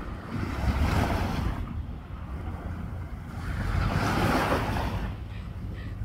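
Small waves washing up on a sandy beach, the surf swelling twice, with wind rumbling on the microphone.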